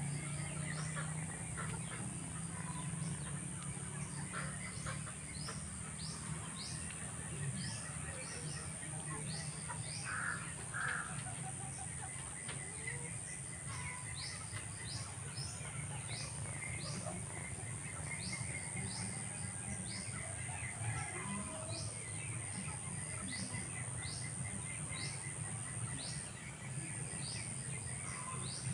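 A bird outdoors repeating short, sharp chirps about once or twice a second, over a steady high-pitched whine and low background noise.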